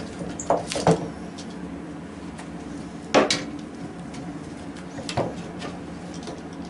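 Metal bar clamps knocking and clicking against a wooden board and the workbench as they are set and tightened on a glue-up: several sharp knocks, the loudest about three seconds in, over a steady low hum.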